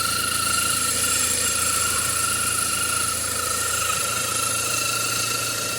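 Car engine running with a steady high-pitched whine from the accessory-belt drive. The whine comes from a worn pulley bearing that is loose and turning in its housing and running out of alignment with the accessory belt.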